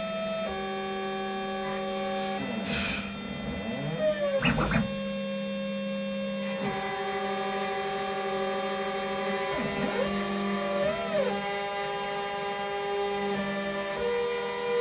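DIY CNC router milling aluminum: a steady spindle hum under stepper-motor whine whose pitch holds, then jumps to a new note every few seconds as the axes change speed. Twice, about 3 s and 10 s in, the whine rises and falls in quick glides as the axes speed up and slow down, and a short hiss comes just before the first.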